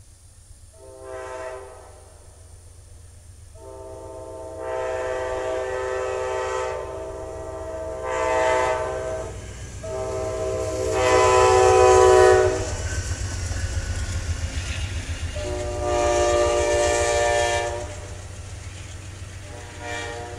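Amtrak Auto Train's GE P42DC diesel locomotives sounding their multi-chime air horn for a grade crossing in a series of blasts, several long and a few short. The loudest blast comes about twelve seconds in as the locomotives pass. Under the horn runs the low rumble of the engines and of the bilevel passenger cars' wheels on the rails.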